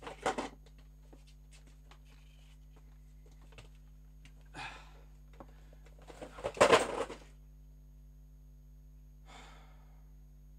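Boxed vinyl figures in plastic protectors being handled and stacked, with a few short rustling clatters; the loudest and longest comes between about 6.5 and 7.3 seconds. A low steady electrical hum runs underneath.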